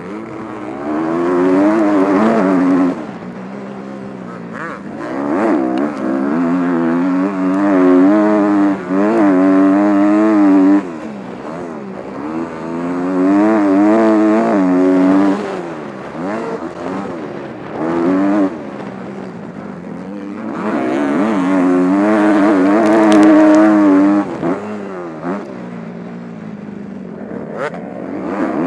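Kawasaki KX250F's four-stroke single-cylinder engine revving hard and dropping off again and again as the rider opens and shuts the throttle and shifts gears around a motocross track. The pitch climbs in loud stretches and falls away between them, heard up close from a camera on the front fender.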